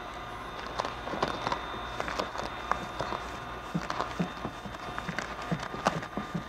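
Avery SW900 matte metallic green vinyl wrap film being handled and laid onto a car door: scattered small crinkles and clicks, a few soft low thuds, over a steady low hum.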